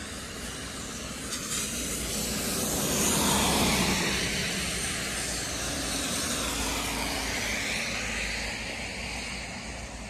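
Vehicle passing on a rain-wet road, its tyres hissing on the wet asphalt: the hiss swells to a peak about three and a half seconds in and then fades slowly, with a smaller second swell later, over a steady low rumble.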